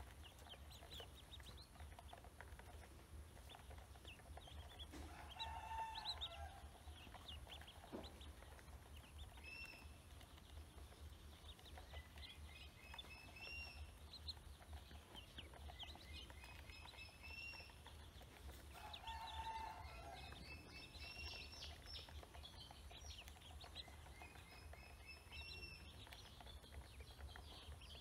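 Ducklings feeding from a plastic basin: faint rapid ticking of bills pecking grain against the plastic, with runs of high peeping. Louder bird calls stand out twice, about five seconds in and again near nineteen seconds.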